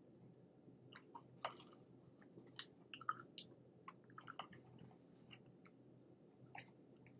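Faint, scattered small clicks and crackles of a man handling a loaded bacon cheeseburger and eating bits of it, chewing.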